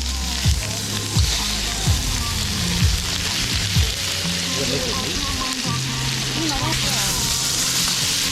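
Food frying in hot oil, with a steady sizzle throughout. Background music with a regular beat plays underneath.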